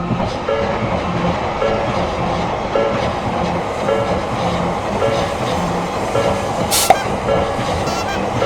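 Japanese level-crossing electronic warning bell ringing in a steady repeating pattern, about once a second, while a train runs past with continuous rumble and wheel clatter. A sharp crack stands out near the end.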